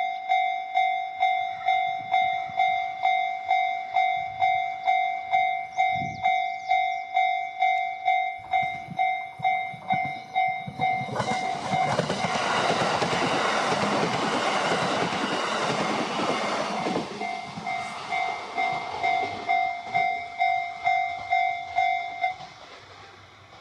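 Japanese railway level-crossing alarm ringing a pitched ding about twice a second. A train passes through the crossing for several seconds in the middle, its noise drowning the bell. The alarm stops suddenly near the end.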